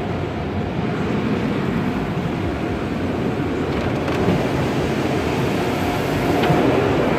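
Tunnel car wash spraying water and foam over the car, heard from inside the cabin as a steady rushing noise that grows a little louder about four seconds in and again near the end.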